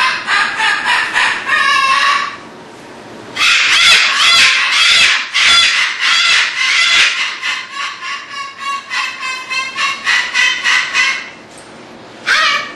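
Cockatoos screaming: loud, harsh calls repeating several times a second in two long bouts with a short pause about two seconds in, then one more scream near the end.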